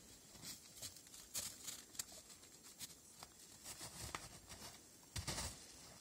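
Faint scattered crunching of footsteps on snow as a person and dogs move about, with a louder crunch about five seconds in.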